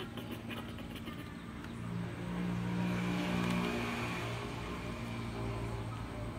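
A motor vehicle's engine running steadily off to one side. It grows louder about two seconds in, then slowly fades, as if the vehicle is passing by.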